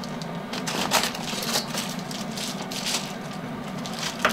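Reflectix foil-faced bubble insulation panels crinkling and crackling as they are pulled out of the windows and handled, in irregular bursts, over a steady low hum.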